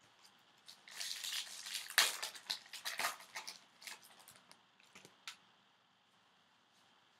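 Trading card pack wrapper being torn open and crumpled by hand: dense crinkling and crackling with sharp clicks for a couple of seconds, thinning to a few last rustles about five seconds in.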